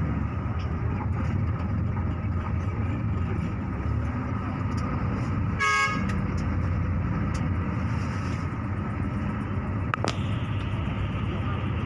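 Bus engine running steadily with road rumble, heard from inside the cabin. About six seconds in the horn gives one short toot, and there is a single sharp knock near the end.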